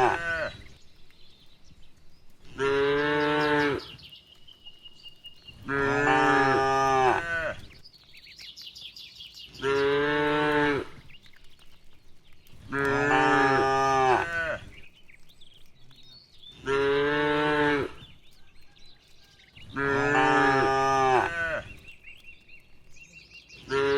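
Cattle mooing: a long moo about every three and a half seconds, around seven in all, each lasting a little over a second.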